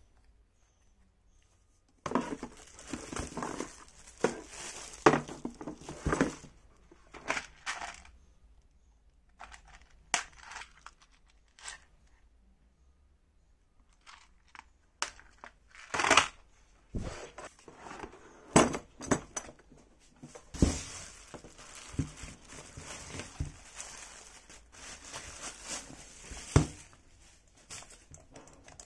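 Clear plastic bag crinkling and rustling as a corded electric drill is unwrapped, in two long stretches with a quieter spell of scattered clicks and knocks from plastic cases being handled in between.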